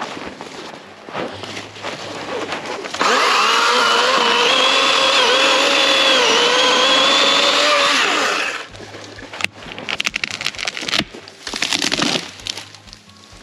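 Greenworks Pro 80V cordless electric chainsaw cutting into a fir trunk. Its motor gives a steady high whine for about five seconds, dipping slightly in pitch as the chain bites, then winds down. A run of sharp cracks and snaps follows as the cut tree gives way.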